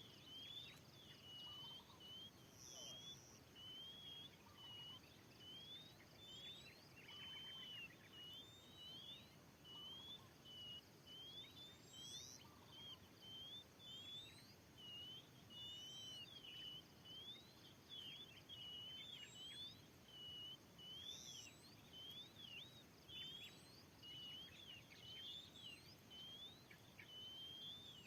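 Oriental magpie-robin (kacer) singing faintly: an unbroken run of short, varied whistled notes that slide up and down, with a higher call repeating every few seconds.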